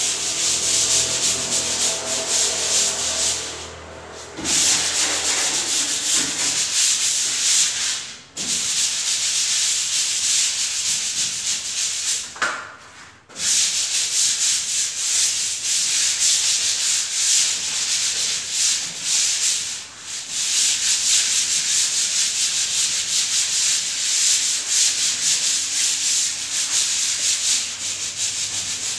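Hand-sanding a puttied gypsum-board ceiling with sandpaper: a fast, steady back-and-forth scratching that stops briefly a few times.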